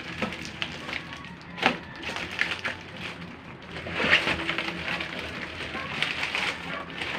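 Packaging crinkling and crackling as it is handled and opened by hand, in irregular sharp crinkles, with louder crackles about one and a half seconds and four seconds in.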